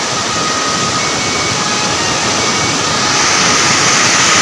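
Steady rush of a waterfall, close by and loud, swelling a little about three seconds in.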